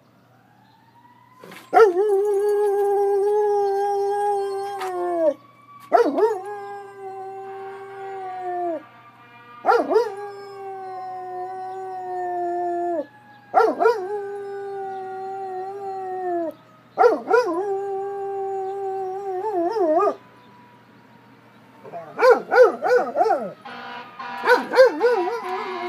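Dog howling along with a faint, distant siren. Five long howls of about three seconds each, each dropping in pitch at the end, are followed near the end by a run of shorter, wavering howls. Beneath them the siren's slow wail rises, then gradually falls.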